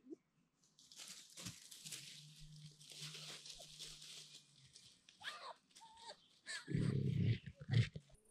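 Red foxes at their den: rustling in dry leaf litter, then short high squeaky calls from the cubs. Two loud, low calls come near the end.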